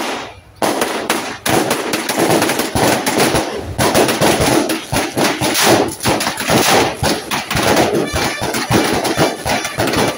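Boxed ground fireworks going off, a sharp bang right at the start, then dense, rapid crackling and popping from under a second in as several boxes spray sparks at once.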